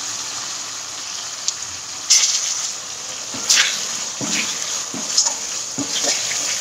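Onions, capsicum and green chillies in soy, chilli and tomato sauce sizzling in a kadai over the flame. A steel spoon scrapes and stirs through them about once a second, starting about two seconds in.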